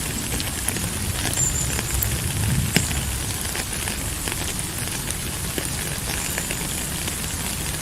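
Steady rain falling, with many small drops ticking on a surface and one sharper drop strike about three seconds in.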